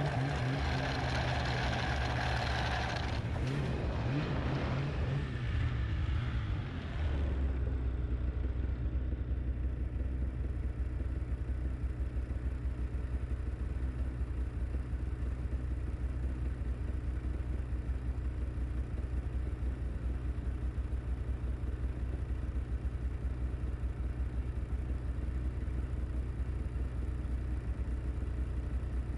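Snowmobile engine running under throttle, revving briefly, then easing off about seven seconds in and settling into a steady low idle with the sled stopped.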